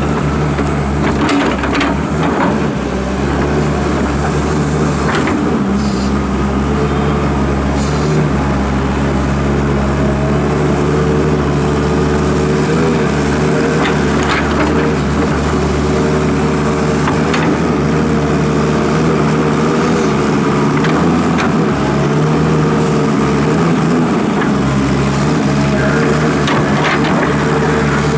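Diesel engine of a Hyundai Robex wheeled excavator running steadily under load as its bucket digs into soil, with a few short knocks from the bucket and arm.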